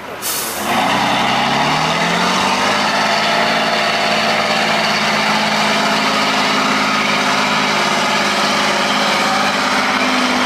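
Tatra 813 eight-wheeled truck's diesel engine revving up over about two seconds, then held at high revs under full load as the truck climbs a steep slope, pouring out black smoke.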